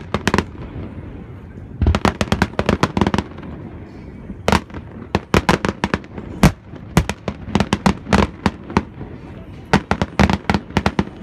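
Aerial fireworks shells bursting: quick clusters of sharp bangs, with single bangs between them.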